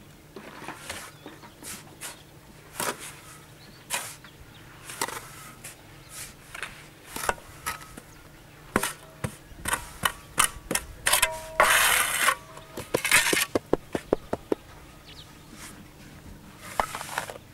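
Shovels scraping into a pile of sand-cement mix and knocking against a metal concrete-block mould as it is filled by hand, in irregular strokes. A longer scraping burst comes about twelve seconds in, followed by a quick run of clicks.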